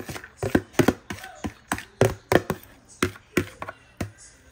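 Chopped ingredients being scraped off a plastic cutting board into a pot: a quick, uneven run of sharp taps and knocks from the utensil and the board.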